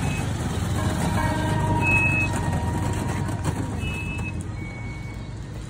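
Steady low rumble of a motor vehicle engine, with a few short, high beeping tones over it.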